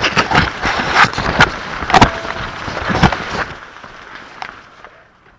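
Corn leaves and stalks brushing and crackling against the camera and body as someone pushes through a cornfield on foot. It is loud for the first three and a half seconds, then fades.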